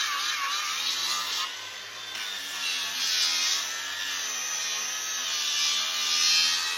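A tool grinding against a draft horse's hoof wall during trimming: a steady abrasive rasping that swells and eases several times.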